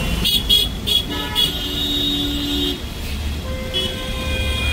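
Vehicle horns honking in stopped, congested traffic: four quick short toots, then a horn held for about a second, and another longer horn near the end, over the low rumble of idling engines.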